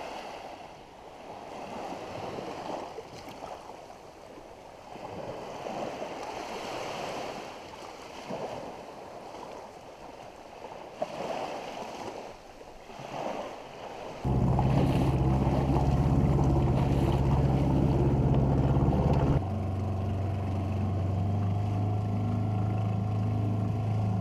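Waves and wind washing around the boat, swelling and fading, until about fourteen seconds in a steady motor drone starts suddenly. About five seconds later the drone drops to a slightly lower pitch and keeps running.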